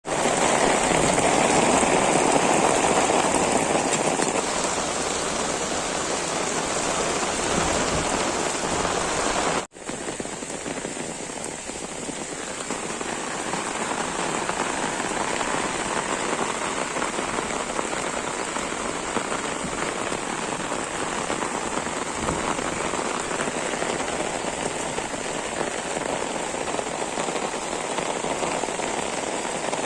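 Heavy rain falling steadily with a dense hiss, briefly cutting out for an instant about ten seconds in.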